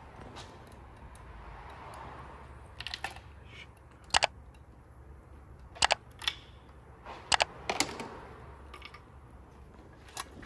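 Sharp metal clicks and taps, about six spaced a second or two apart, from a spark plug being lifted out of the M120 V12's plug well with a magnetic pickup tool, over a low steady hum.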